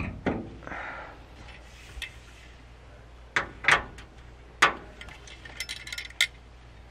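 Light metal clinks and knocks as a small lantern and its wire handle are handled on a hook on a van's rear door, ending in a quick run of small clicks.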